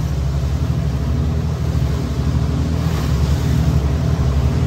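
Motor boat's engine running steadily with a low drone, over a hiss of water along the hull.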